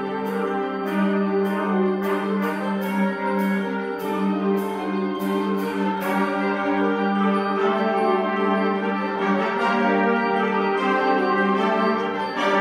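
Middle school concert band playing sustained brass and woodwind chords, with a sharp percussion stroke about twice a second that stops about halfway through.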